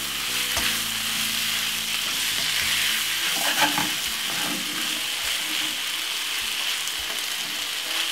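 Leftover pasta and stir-fried cabbage sizzling in a frying pan as a wooden spoon stirs and tosses it, a steady hiss with light scrapes and taps of the spoon on the pan. A louder knock comes about three and a half seconds in.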